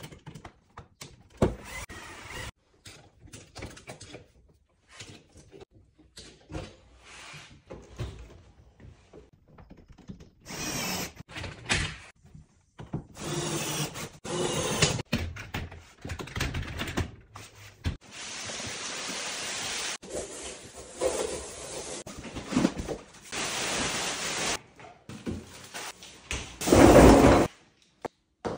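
Knocks, thuds and clatter of cabinet parts being handled and fitted, broken up by several stretches of steady hissing noise a few seconds long, with a loud burst of about a second near the end.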